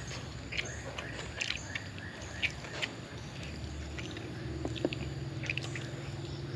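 A man eating grilled chicken and grilled catfish with his fingers: short wet clicks and smacks of chewing and biting. A steady low hum comes in about four seconds in.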